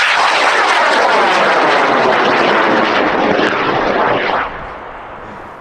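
High-power rocket motor firing at liftoff as the rocket climbs away: a loud, steady rushing noise with a slow sweeping, phasing quality, which drops off sharply about four and a half seconds in.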